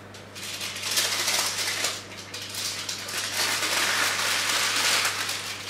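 Greaseproof baking paper rustling and crinkling as it is pulled and slid off a baking tray. It comes in two spells, a short one and then a longer one after a brief lull about two seconds in.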